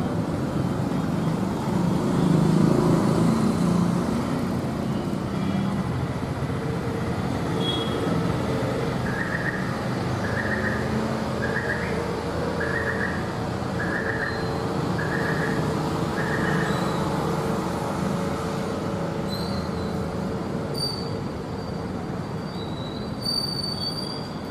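Steady noise of road traffic, with a run of seven short, evenly spaced beeps about halfway through and a few brief high-pitched tones near the end.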